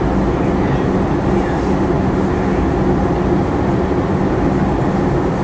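Steady in-flight cabin noise of a Boeing 737-800 airliner: an even rush of airflow with a low, constant hum underneath.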